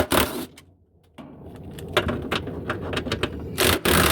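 A power driver running in short spurts, backing out the last bolts that hold a Whirlpool washer's transmission, with metal rattling and clicking, and a louder burst near the end.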